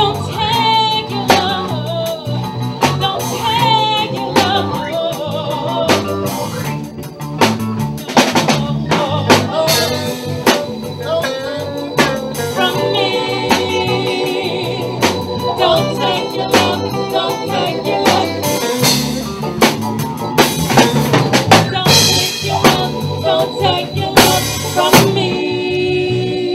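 Live band playing a song: singing at the microphones over a drum kit, with guitar and keyboard.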